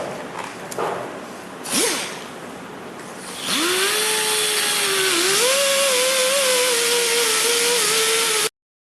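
A handheld power grinder starts about three and a half seconds in and runs with a steady high whine, its pitch wavering, as it grinds a V-groove into a cracked plastic bumper. Before it come a few light knocks and handling sounds, and the whine cuts off suddenly near the end.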